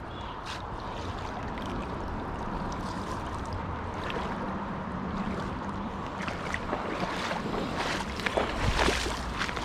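Shallow creek water running steadily, with sloshing and splashing as someone wades through it with a dip net. The splashes grow louder and more frequent in the last few seconds, and a low rumble on the microphone comes in near the end.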